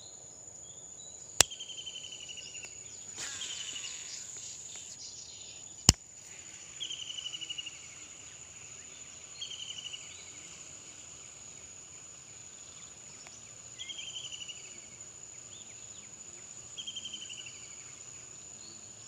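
Steady high-pitched insect drone, with a short falling trill that repeats every three seconds or so. Two sharp clicks in the first six seconds are the loudest sounds.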